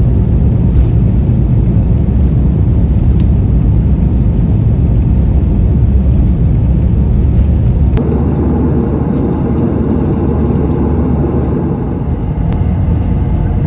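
Steady low rumble of airliner cabin noise in flight, with a click and a shift in the noise about eight seconds in.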